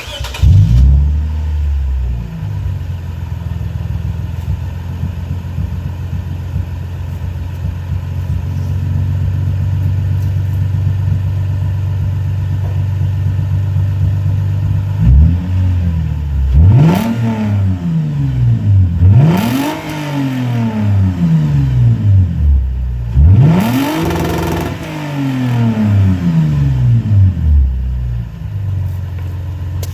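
2008 Lexus IS250 AWD's 2.5-litre V6, its rear mufflers removed (axle-back muffler delete), starting up and idling steadily. In the second half it is revved several times, the last rev held a little longer, then it settles back to idle.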